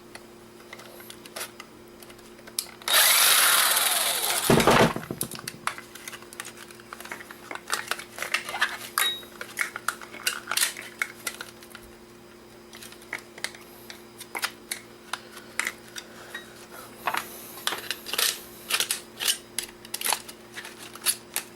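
Electric screwdriver running for about two seconds, about three seconds in, its pitch falling as it winds down while it takes out one of the camera's small screws. Then many light clicks and taps of small plastic parts and screws being handled.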